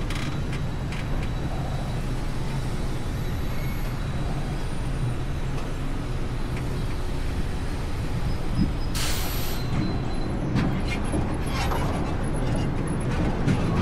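Roller coaster train rolling slowly along its track on the run back to the station at the end of the ride, a steady low rumble of wheels on track. A short hiss comes about nine seconds in.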